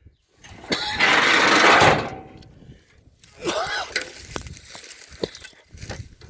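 An old pickup truck's driver's door being tried and not opening: a loud burst of metal rattling, then a short squeak and a few clicks from the handle and latch.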